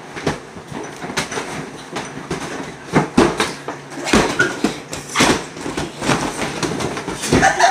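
Giant inflatable vinyl boxing gloves thumping against each other and against bodies, an irregular run of hits, most of them about three to five seconds in and again near the end.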